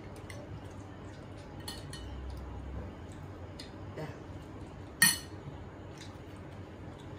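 Spoons and forks clinking against ceramic plates and bowls at a meal: scattered light clicks, with one sharper clink about five seconds in.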